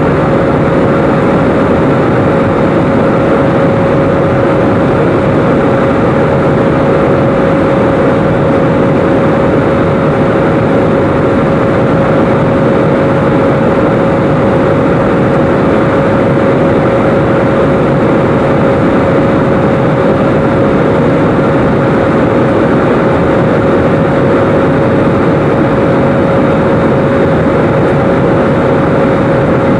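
Airbus A320 passenger cabin in cruise beside the wing-mounted jet engine: a loud, unchanging rush of engine and airflow noise with a steady mid-pitched hum running through it.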